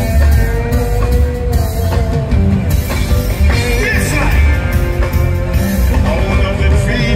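Live reggae band playing loud through the PA, heard from the crowd: a heavy electric bass line and drums under keyboards, with the singer's voice over the band.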